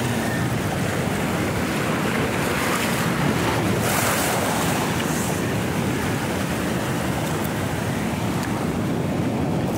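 Sea surf washing and breaking over shoreline rocks, a steady loud rush with a brief surge about four seconds in, and wind blowing on the microphone.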